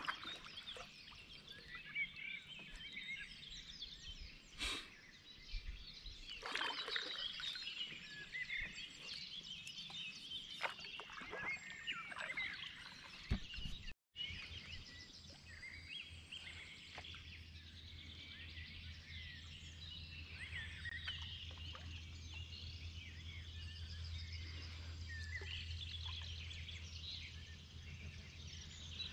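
Several songbirds singing and calling from riverside trees, a dense mix of short chirps and trills, with a few brief splashy noises in the first several seconds.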